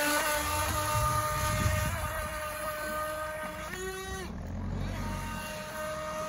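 Small RC jet boat running at speed: the steady high whine of its 390-size brushed DC motor driving a jet water pump, over a low rumble. About four seconds in, a brief different tone sounds and the whine dips for a moment before returning.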